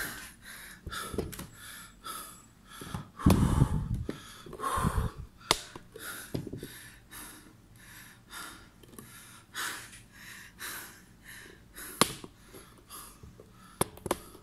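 A man breathing hard and panting in short, uneven breaths right after fifty push-ups, winded from the exertion. A loud low bump rumbles about three seconds in, with a few sharp clicks later on.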